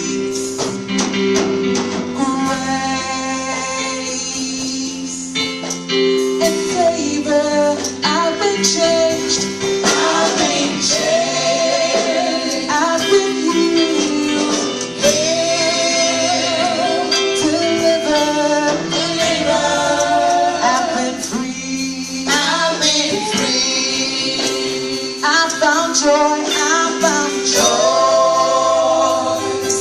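A gospel choir sings with instrumental backing, female and male voices together.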